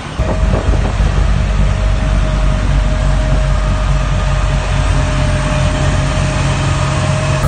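Tractor engine running steadily while driving a front-mounted snowblower through snow, a constant hum with a steady higher whine above it.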